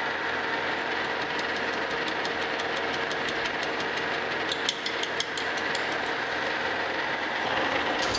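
Metal lathe running and facing the front of a brazed cast-iron lever casting held in a four-jaw chuck, the cutting tool taking off a glob of braze. A steady machine hum with a regular ticking of about five a second through most of the cut.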